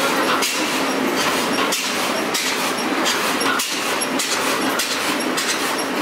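Large horizontal single-cylinder stationary engine with big spoked flywheels running, giving a steady mechanical clatter with a slow beat about once a second.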